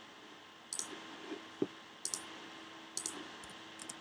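A few faint clicks and short, soft high ticks from a computer mouse being handled at a desk, over a faint steady hum.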